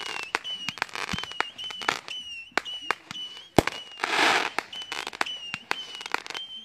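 Repeating aerial fireworks firing a rapid series of sharp pops, with short high whistles recurring between them. A louder crackling burst comes about four seconds in.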